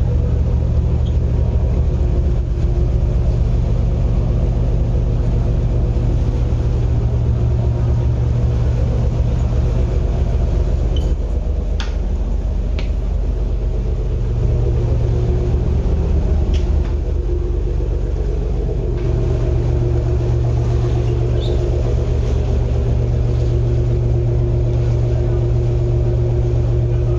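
Vintage harbour ferry's diesel engine idling steadily while moored at the pier before departure, a deep steady hum. A few light clicks or knocks around the middle.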